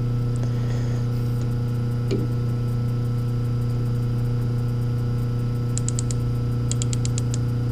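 Steady electrical hum at an even level, with two short runs of rapid high ticks a little before the end.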